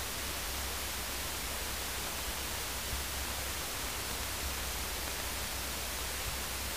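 Steady electronic hiss with a faint low hum underneath: the noise floor of a headset intercom audio feed while nobody is talking.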